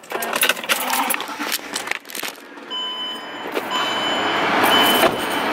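Rustling and knocks, then a car's warning chime beeping about once a second from about halfway through, over a steady rush of air from the air-conditioning blower that comes up at the same time.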